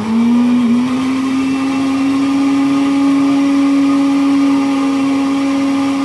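Electric countertop blender switched on, its motor rising in pitch as it spins up and then running at a steady hum, blending milk with sugar.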